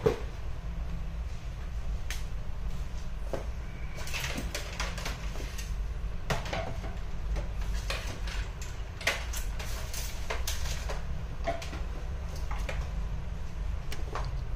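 Steady low hum with light knocks and clicks scattered through it, about one every second or two.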